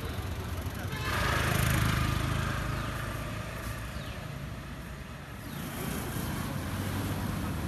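Ducati 959 Panigale's Superquadro V-twin idling through an SC Project S1 exhaust, a steady low lumpy pulse. Street traffic noise swells about a second in and fades over the next few seconds.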